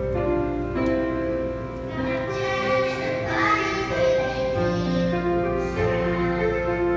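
Piano accompaniment, then a children's choir begins singing a Mandarin song about two seconds in, with the piano carrying on underneath.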